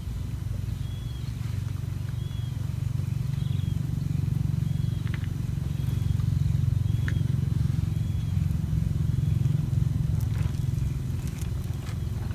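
Wind buffeting the microphone in a low, uneven rumble that swells mid-way. Over it a bird repeats a short high note about once a second, with a few faint clicks.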